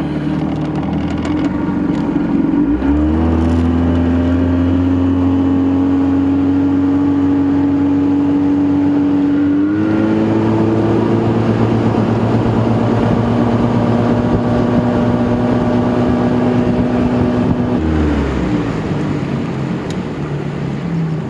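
A 50 hp Force two-stroke outboard motor running under way. Its pitch climbs as the throttle opens about three seconds in, steps up a little near the middle, then drops as it is throttled back near the end.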